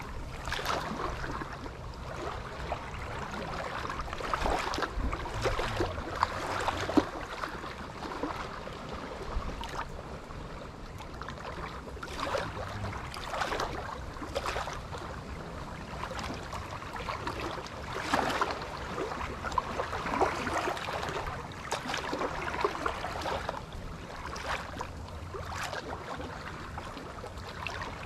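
Strong wind buffeting the microphone as a low rumble, with water lapping and splashing irregularly.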